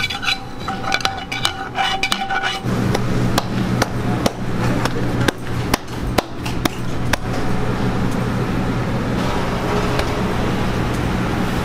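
Hands slapping and patting naan dough on a steel counter, a series of sharp slaps at irregular intervals. From about two and a half seconds in they sit over a steady low hum of kitchen equipment. The first couple of seconds hold a few steady high tones.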